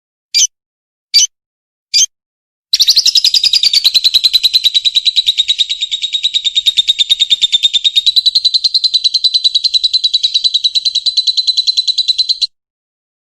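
Lovebird calling: three sharp single chirps, then a long, rapid chattering trill held for about ten seconds before it stops abruptly. This is the long continuous chatter ('ngekek') valued in lovebird song competitions.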